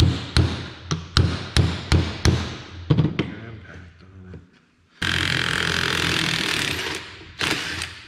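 A hammer striking a metal pipe fitting about twice a second for roughly three seconds. About five seconds in, a cordless impact driver starts abruptly and runs steadily for about two seconds, then briefly once more near the end.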